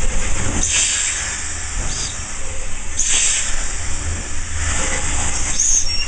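Cab sounds of Santa Fe 4-8-4 steam locomotive 3751: a steady low rumble with short bursts of steam or air hissing about every second or two.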